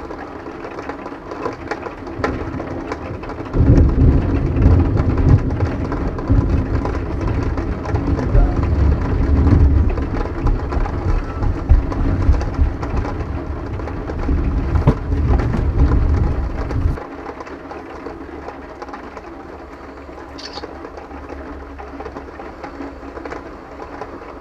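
Long, loud, low rumble of thunder starting a few seconds in and stopping abruptly after about thirteen seconds, over a steady hiss of rain.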